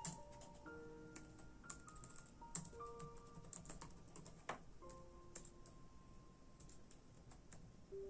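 Computer keyboard typing: irregular keystroke clicks, coming in quick runs with short pauses, over soft background music with slow held notes.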